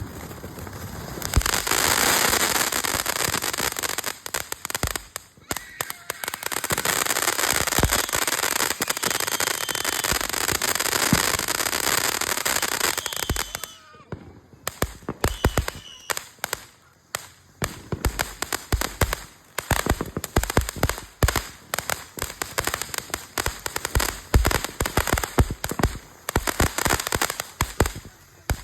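Phantom Fireworks 'Ultimate Tank' ground fountain burning: a steady spraying hiss in two long spells, then, for the second half, a rapid run of sharp crackling pops.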